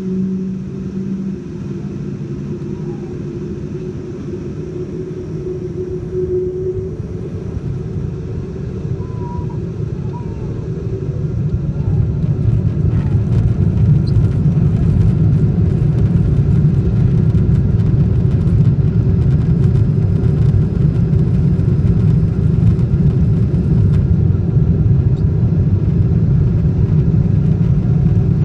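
Boeing 747-8 Intercontinental heard from inside the cabin at the start of its takeoff: a steady engine hum with a faint whine. From about eight seconds in the engines spool up to takeoff power, and a heavy low rumble of engines and wheels on the runway builds over a few seconds and then holds, loud and steady.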